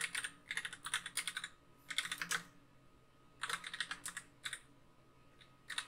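Computer keyboard being typed on, keys clicking quickly in several short bursts with pauses of about a second between them.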